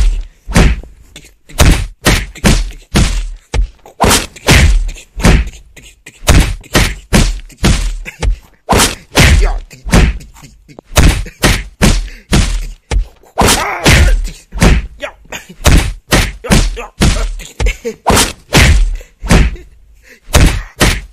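Rapid, irregular thumps and knocks, about two a second, from a handheld phone being jostled and a hand striking the bedding during rough play with a kitten.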